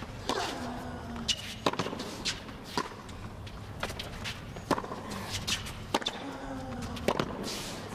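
Tennis rally on a hard court: sharp pops of racket strings hitting the ball and the ball bouncing off the court, coming about once a second at uneven intervals over the low hum of the arena.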